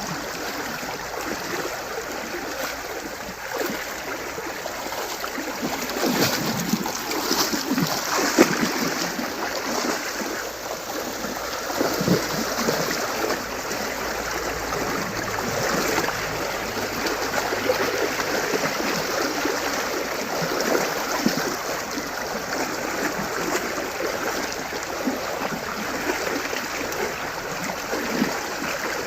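Shallow river running steadily, with irregular splashes of cattle wading through the water, strongest several seconds in and again a little later.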